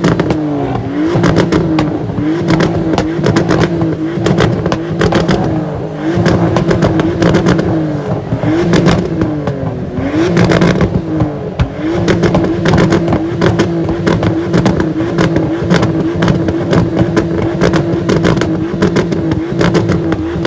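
Car engine held at high revs, the pitch dipping and snapping back up several times in the first twelve seconds, then held steady, with rapid crackling pops from the exhaust throughout.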